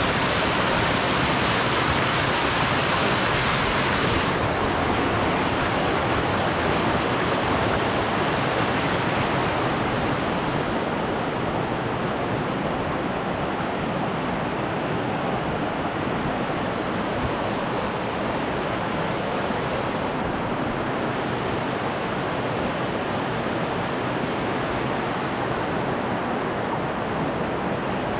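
Mountain creek rushing over boulders and small cascades: a steady, loud rushing of water, a little softer and duller from about four seconds in.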